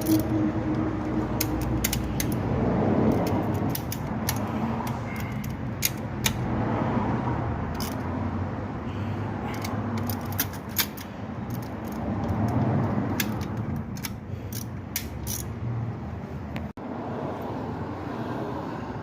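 Scattered sharp metallic clicks and rattles of hands and tools working on an engine's accelerator (throttle) linkage, over a steady low background rumble.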